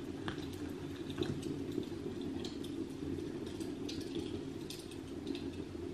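Quiet room tone: a steady low hum with faint, scattered small ticks and clicks.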